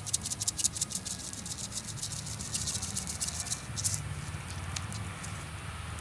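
Wood fire under a barbecue grill crackling and popping as fat spits from freshly turned steaks: quick sharp crackles, densest for the first four seconds, then thinning out.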